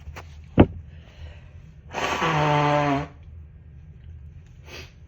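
A person blowing their nose hard into a tissue to clear the congestion from dust-triggered sneezing: one pitched, hissing blow about a second long, starting about two seconds in and cutting off abruptly. A sharp knock comes before it, and a short sniff follows near the end.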